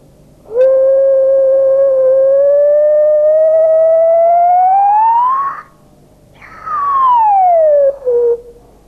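A whistle-like tone blown at the lips through cupped hands. It rises slowly in pitch for about five seconds, breaks off, then comes back high and slides down again. The pitch climbs as the space enclosed by the hands is made smaller, demonstrating that less volume gives a higher note.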